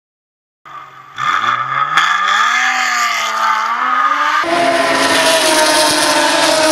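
Porsche Cayman S race car's flat-six engine accelerating hard, its pitch climbing steadily for about three seconds. It then cuts abruptly to a steadier, louder engine note with a strong rushing hiss as the car runs at speed.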